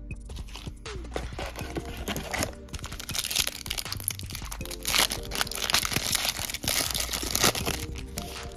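Foil trading-card pack wrapper crinkling and crackling as it is handled and torn open, busiest in the second half, over steady background music.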